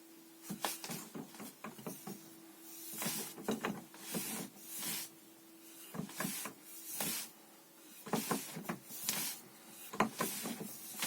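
Wing Chun lap sao and lap da hand drill: repeated swishes of sleeves and arms with sharp slaps and clicks of hands meeting forearms, about one exchange a second, over a faint steady hum.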